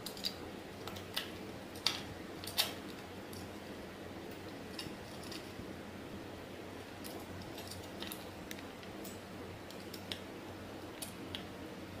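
Metal parts of a key cutting machine's clamp fixture and housing being handled by hand: sharp clicks and clacks, the loudest about two and two and a half seconds in, then lighter scattered ticks, over a low steady background hum.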